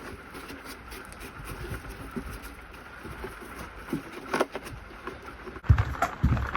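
Light clicks and knocks of hand work fitting a toilet flange, then a sudden heavy low thump near the end.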